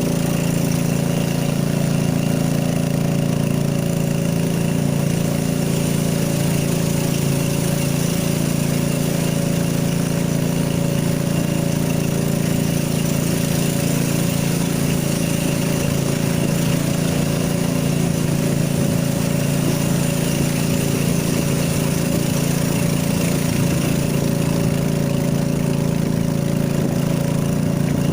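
A small engine running steadily at one even speed, with no revving or change throughout.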